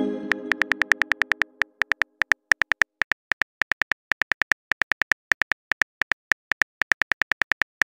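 Phone keyboard typing clicks from a texting app: a rapid, uneven run of short ticks as a message is typed. Under the first second or so, the chime of an incoming message fades away.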